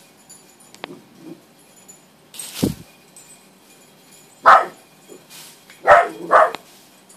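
Dogs barking in play: three short, loud barks in the second half, two of them close together near the end, with a single thump a little over two seconds in.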